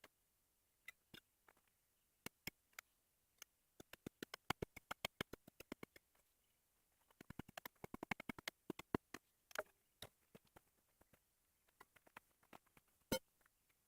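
Faint sharp clicks and knocks of a hand tool digging into fragile shale: scattered single taps, then two dense runs of several clicks a second in the middle, and one louder knock near the end.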